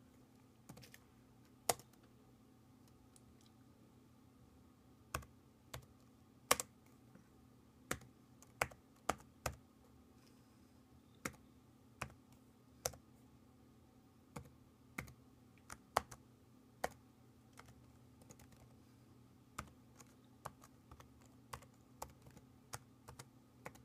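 Keys on a white MacBook's built-in keyboard pressed one at a time, slowly and with uneven gaps, as console commands are typed out. A faint steady hum runs underneath.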